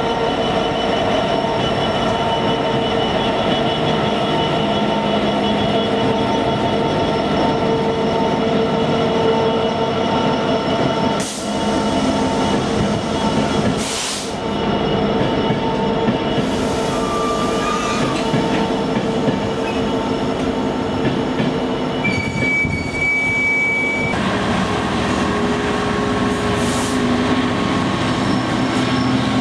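Freight trains passing close by: the steady drone of Class 66 diesel locomotives' engines and the rumble of wagons rolling over the rails. Near the end comes a short high wheel squeal.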